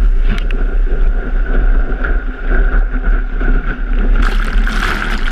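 Breaking surf and whitewater rushing around a camera held at water level in the waves: a loud, steady rushing over a deep rumble, turning brighter about four seconds in.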